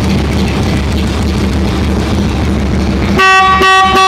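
Harley-Davidson Heritage Softail's V-twin engine running at a steady idle. About three seconds in, the bike's horn sounds in several short honks in quick succession, pressed from the left handlebar switch.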